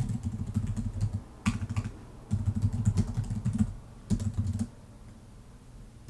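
Typing on a computer keyboard in quick bursts of keystrokes, a few words at a time, stopping about three-quarters of the way through.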